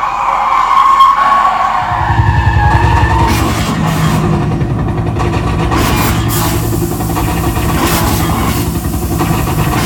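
Stunt cars' engines running loudly during a staged action sequence. A wavering high squeal sounds over the first couple of seconds, then a heavy engine rumble sets in about two seconds in, and several sharp bangs are scattered through it.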